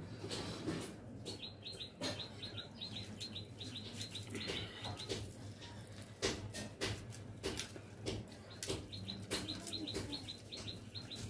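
A small bird chirping in quick runs of short high notes, about five a second, in two spells, one starting about a second in and one near the end. Scattered sharp clicks and knocks and a steady low hum lie under it.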